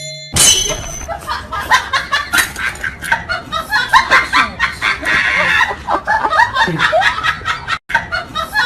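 Laughter: a rapid, continuous run of short, high giggles and snickers, with a brief break near the end.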